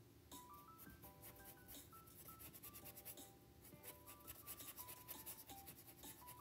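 Quiet background music with a simple stepping melody, over quick scratchy strokes of a paintbrush dabbing acrylic paint onto canvas.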